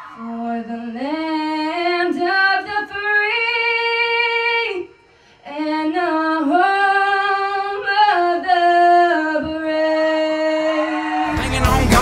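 A girl singing unaccompanied into a handheld microphone, long held notes that slide between pitches, with a pause about five seconds in. Just before the end, loud recorded music cuts in.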